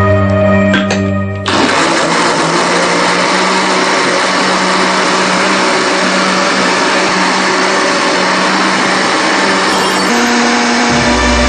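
Electric countertop blender switched on about a second and a half in, then running steadily at full speed. Music plays at the start and comes back near the end.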